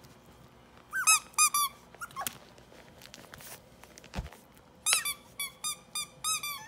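Puppies biting a squeaky plush toy: short high-pitched squeaks in quick runs, a cluster about a second in and a longer run near the end. A dull thump comes about four seconds in.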